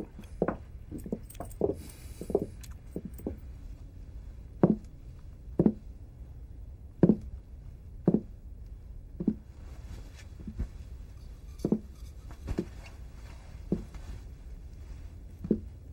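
Slow footsteps: a few close together in the first two seconds, then about one a second, over a low steady hum.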